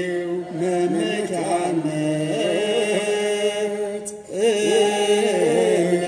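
Two men singing an Ethiopian Orthodox Tewahedo mezmur (hymn) together in slow chant, holding long notes with wavering, ornamented turns. The voices break off briefly about four seconds in, then come back in.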